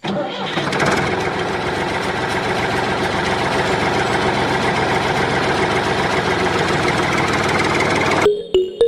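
A small motor running steadily with a fast, even buzzing pulse, cutting off suddenly near the end.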